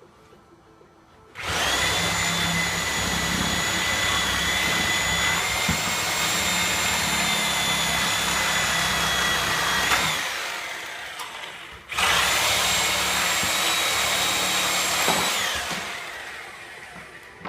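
Porter-Cable Tiger Saw reciprocating saw running at full speed while cutting through the nails between pallet boards. It runs for about eight seconds and winds down, then runs again for about three seconds and winds down.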